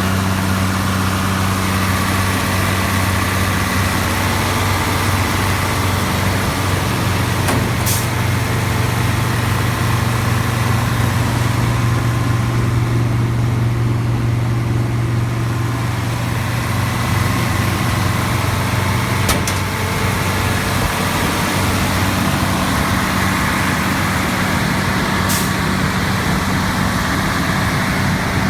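The Iveco diesel engine of a New Holland TX68 combine harvester running steadily. A deeper note is stronger through the middle, and there are three brief clicks.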